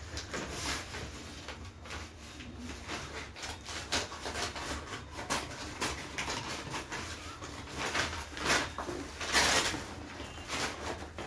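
Crinkling and rustling of a courier parcel's plastic mailer packaging as it is handled and pulled open by hand. The crackles come irregularly, with the loudest bursts late on.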